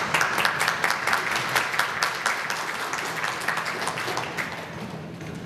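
Audience applauding. The clapping is dense at first, then thins out and fades near the end.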